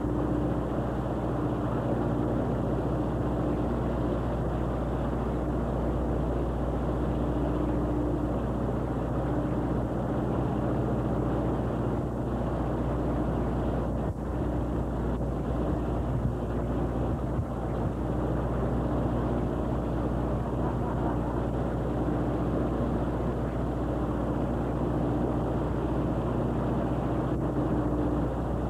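A commercial fishing boat's engine running with a steady drone, heard from on board.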